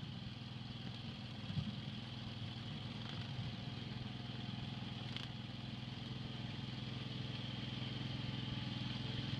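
Engine of an OB80 ground apple collector running at a steady speed, an even low hum with a small knock about a second and a half in.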